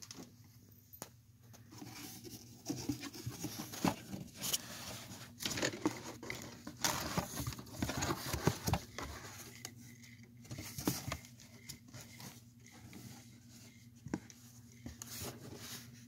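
Cardboard box flaps and its contents being handled: irregular rustling, scraping and knocks, busiest in the first half and sparser later, over a faint steady low hum.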